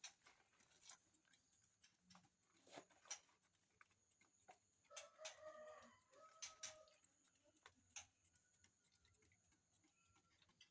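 Faint scattered clicks and taps, with a bird calling twice near the middle, two drawn-out calls of under a second each.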